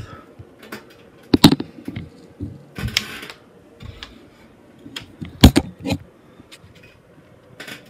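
Scattered clicks and knocks of things being handled and moved about, with two louder knocks about a second and a half in and near the middle, and a short clatter between them.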